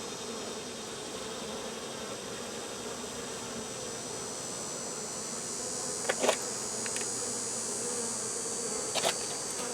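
Honey bees buzzing steadily around an open hive during a frame inspection. A few brief clicks or knocks sound about six and nine seconds in.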